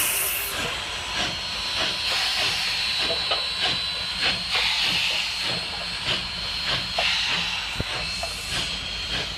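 Union Pacific 844, a 4-8-4 steam locomotive, hissing steam steadily, with uneven short pulses in the hiss.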